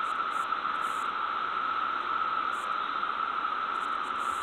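Steady static-like hiss, even and unchanging throughout.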